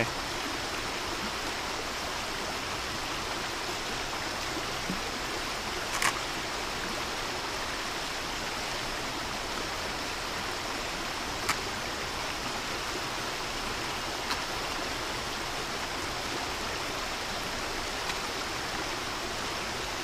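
Steady rushing of a flowing stream, with a couple of faint brief clicks about six and eleven seconds in.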